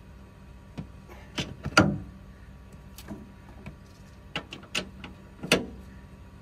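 Haval Dragon's front end creaking and knocking irregularly, about six times, loudest about two seconds in and again near the end, over a low steady hum. This is the creak heard when the steering is turned, which the owner cannot place between a shock absorber and the steering gear.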